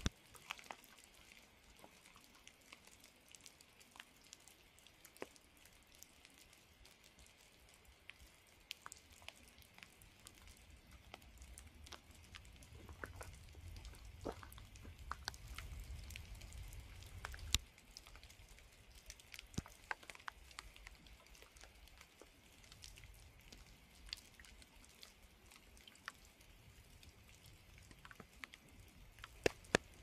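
Light rain in a forest: scattered, irregular drips and raindrops ticking over a soft hiss, with a low rumble for a few seconds midway.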